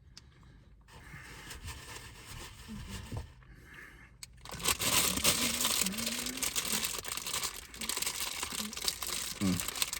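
Plastic bag crinkling and rustling as it is handled and twisted shut, getting much louder about four and a half seconds in.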